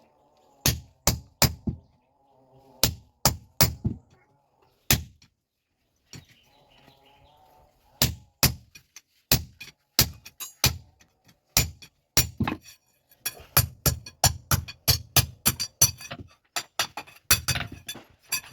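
Blacksmith's hammer striking iron on an anvil, forging a handle from an iron bar. A few separate blows come first, then after a pause, faster runs of about two to three strikes a second.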